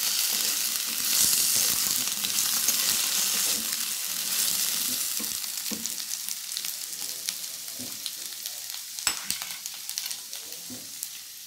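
Potato slices sizzling in hot oil in a frying pan as they are stirred with a steel spoon, half-cooked and just starting to brown. The sizzle fades gradually, with a few sharp clicks of the spoon against the pan in the second half.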